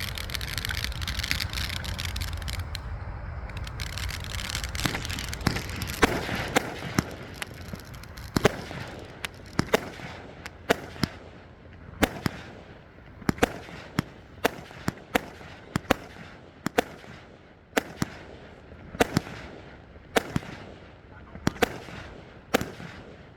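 A 49-shot consumer fireworks cake firing: a steady run of sharp shots and bangs, about one or two a second, each trailing off, after a few seconds of steady noise at the start.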